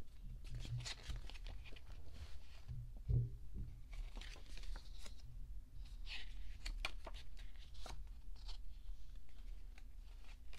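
Cardboard album digipack and its small paper photo book being handled: rustling and page turning with scattered light clicks, and a soft thump about three seconds in.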